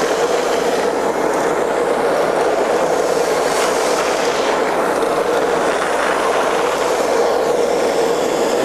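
Ruwac single-venturi, air-powered, explosion-proof vacuum running on compressed air: a loud, steady rush of air with a constant tone through it. Its 2-inch hose and wand are sucking up ultra-fine bentonite powder.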